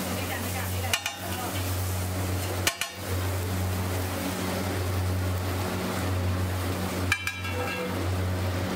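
Metal spatula knocking three times against a large flat iron griddle, each a sharp clink with a short ring, over a steady low hum.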